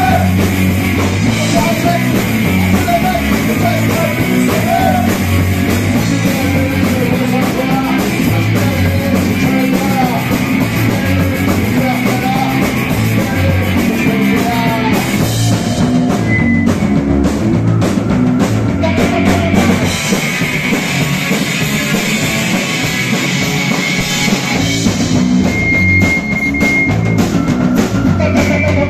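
Punk rock band playing live: distorted electric guitars, bass and a drum kit driving a steady beat, with a man singing over the first half and a held high guitar note near the end.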